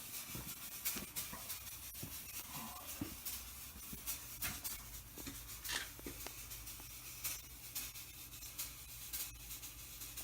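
ADJ Fog Fury Faze fog machine running steadily: a low hum under a faint hiss, with scattered light ticks.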